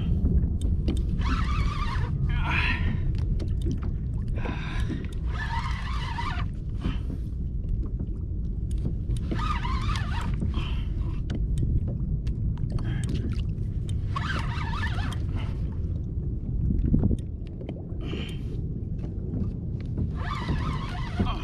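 Steady low wind rumble on the microphone with water washing and splashing against a plastic fishing kayak's hull in surges every few seconds.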